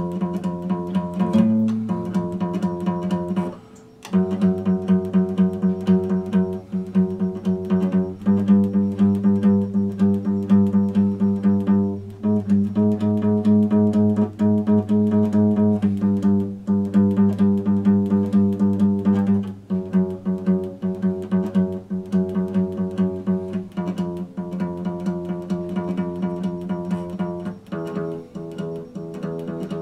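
Epiphone steel-string acoustic guitar fingerpicked: a repeating pattern of plucked notes over ringing chords, with a brief break a little under four seconds in before the playing resumes.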